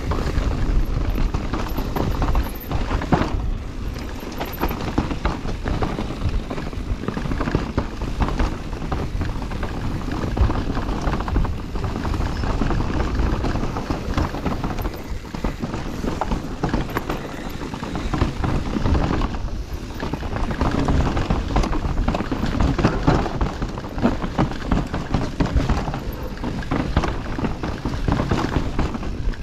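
Enduro mountain bike riding down a rough, stepped trail: tyres rolling and knocking over rocks and roots and the bike rattling, in an irregular run of knocks. Wind buffets the microphone throughout.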